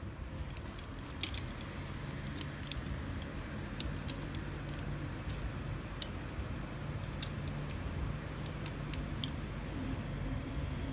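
Small metal parts of a mortise lock clicking and clinking as they are handled and fitted during reassembly: about a dozen light, sharp ticks at uneven intervals, the sharpest about six seconds in, over a steady low hum.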